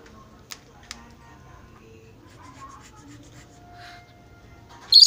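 A rainbow lorikeet gives a loud, shrill screech near the end that falls in pitch, after a stretch of near quiet with a couple of faint clicks.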